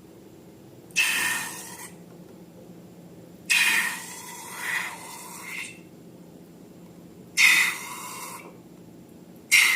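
Finished slime being squished and pressed by hand: about six short, wet, noisy bursts at irregular intervals, each starting sharply and fading within about a second.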